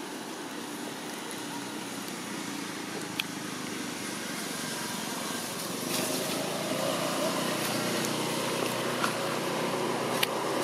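Steady rumble of a motor vehicle, growing slowly louder, with a couple of faint clicks.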